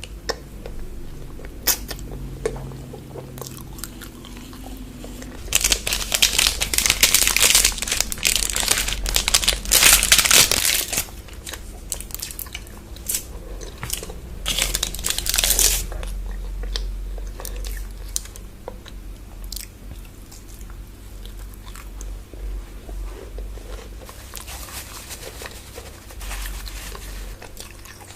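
Close-miked eating of chocolate bars: crunchy bites and chewing, with a dense, loud stretch of crackling crunches from about six to eleven seconds in and another shorter one around fifteen seconds.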